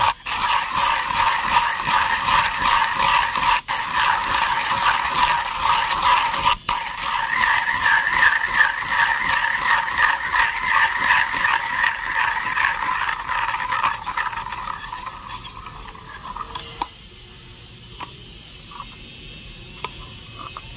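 1Zpresso hand coffee grinder cranked steadily, its burrs crunching coffee beans in a fast, rattling rhythm with two brief breaks. The crunching thins out and stops about three-quarters of the way through as the beans run out, leaving a few light clicks.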